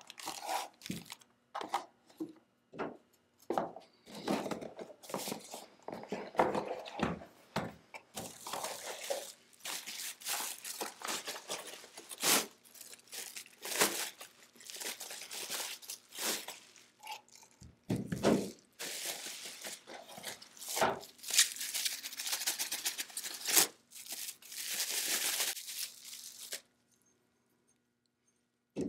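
Packaging being handled: cardboard boxes opened and plastic bags and bubble wrap crinkling and tearing, with sharp knocks of parts and boxes set down on the table. The handling sounds stop abruptly near the end.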